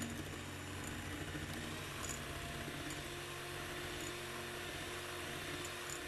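Revgen RHM101 electric hand mixer running steadily at its second, medium-high speed, its wire beaters whipping egg-white meringue in a glass bowl after the last of the sugar has gone in.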